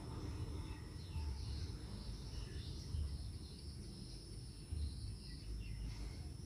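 Background ambience: a continuous low rumble with faint, scattered chirps of birds and insects above it.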